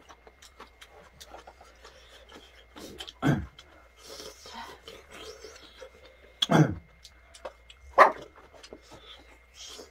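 People eating at a table: small clicks of chopsticks against the food container and chewing, broken by three short voiced huffs of breath about three, six and a half and eight seconds in, the kind of panting that spicy food brings on.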